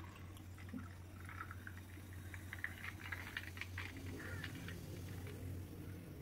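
Soda water poured into a glass over ice cubes, fizzing faintly with scattered irregular crackles of bursting bubbles. A low steady hum runs underneath.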